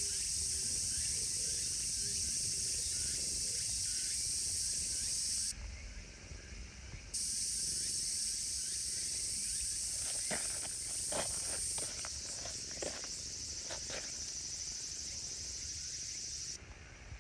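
Steady, high-pitched outdoor insect chorus that drops out about five and a half seconds in, returns a second and a half later, and cuts off near the end.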